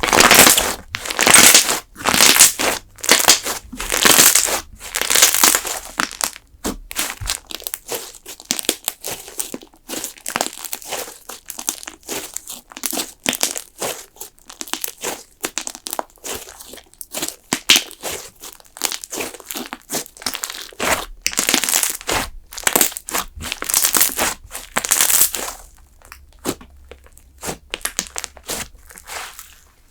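Thick slime being squeezed and pressed by hand, with quick crackling and popping of trapped air. The crackling is loudest in the first six seconds and again a little past twenty seconds, with softer pops in between.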